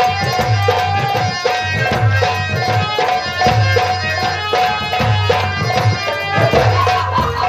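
Live folk-theatre music: tabla-type hand drums playing a fast, driving rhythm with repeated deep strokes, over a held melodic tone.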